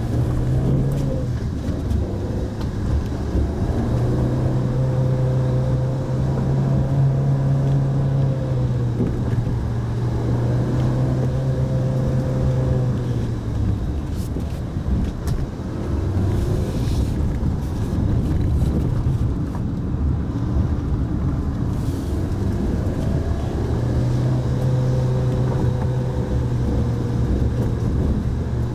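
Mitsubishi Pajero Mini engine running under way, with dense road noise. The engine holds a steady note, drops away about halfway through and wavers in pitch, then settles back to a steady note about three-quarters of the way through.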